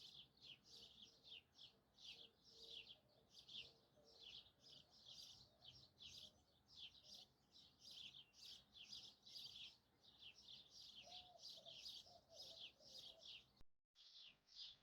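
Faint birdsong: a continuous run of quick, high downward chirps, several a second, with a softer lower warble about three-quarters of the way through. The sound drops out briefly near the end.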